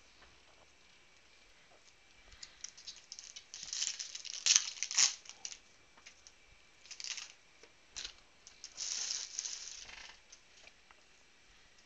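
Foil wrapper of a Panini Prizm football card pack being crinkled and torn open, in several bursts of crackling from about two seconds in until near the end, the loudest with two sharp snaps around the middle.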